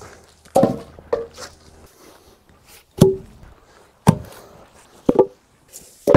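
Heavy wooden 4x6 beams knocked and dropped onto one another as they are stacked crosswise into a crib: about six sharp wooden knocks, roughly a second apart.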